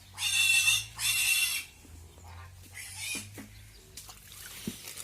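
Two loud, harsh animal calls in quick succession, each about half a second long, with a fainter third call about three seconds in.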